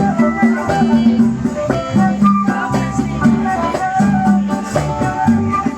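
A live band playing an instrumental passage with a steady beat, with no singing.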